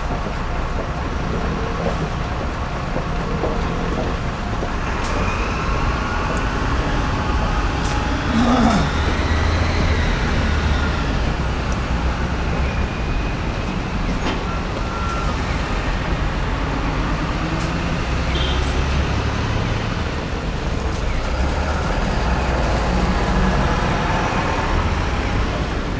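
Steady traffic noise from passing road vehicles, with a low rumble and a brief high squeal about eleven seconds in.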